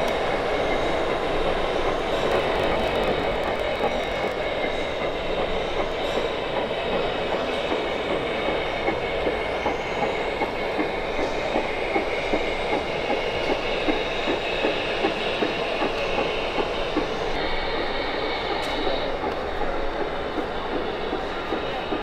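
LGB G-scale model train running along its track: a steady rolling rattle with fast, regular clicking of the wheels over the rails, and thin high steady tones above it.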